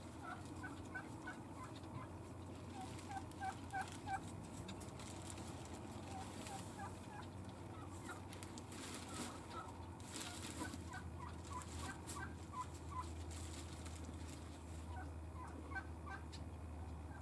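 Faint bird calls: runs of short, quick notes repeating on and off throughout. Rustling of a plastic bag being handled comes in the middle.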